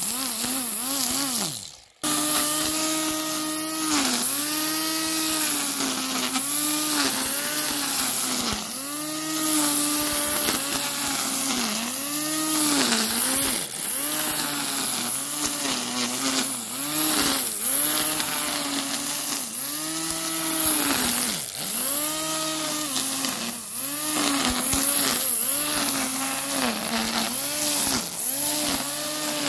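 Parkside PRT 550 A3 electric grass trimmer's 550-watt motor spinning its nylon line and cutting grass. The whine dips in pitch and recovers again and again as the line bites into the grass. About two seconds in it winds down to a stop, then runs again at full speed.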